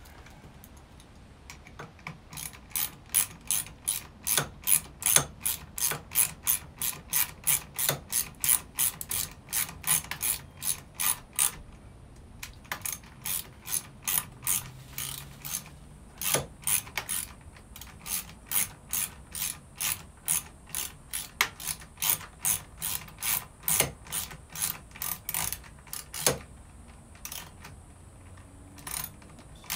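A ratchet wrench clicking as a bolt is turned, about three clicks a second in a steady run, with a short break about twelve seconds in.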